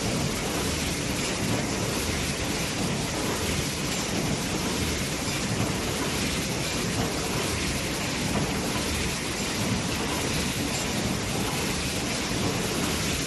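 Steady, loud wash of machinery noise from a carton filling and packaging line running, with no clear rhythm or tone standing out.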